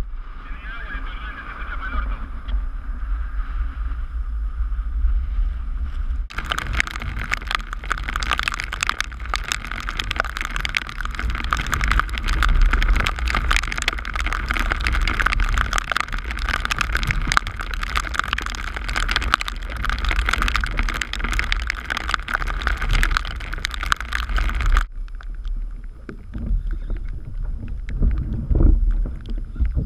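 Wind buffeting the microphone over choppy sea, with a low rumble throughout. About six seconds in, heavy rain on the sea and the kayak sets in as a loud, dense hiss, then cuts off abruptly near the end.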